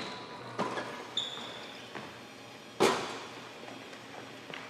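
A basketball thumping and bouncing in a hardwood-floored gym, several separate knocks with the loudest a little under three seconds in. A short high sneaker squeak comes about a second in.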